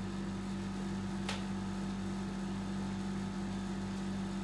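Steady low electrical hum, with a single sharp click about a second in.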